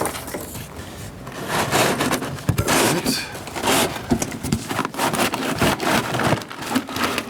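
Cardboard box and packing being handled as a horn speaker is worked out of it: irregular rustling, scraping and small knocks.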